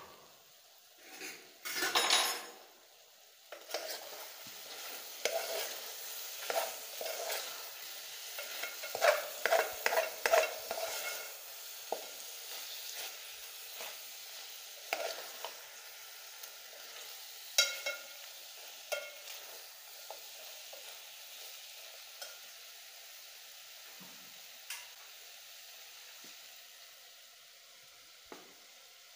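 Beef sizzling as it fries in a metal pot while a spoon stirs and scrapes it, with a couple of metal knocks in the first few seconds. The scraping is busiest in the middle, and the sizzle grows fainter toward the end.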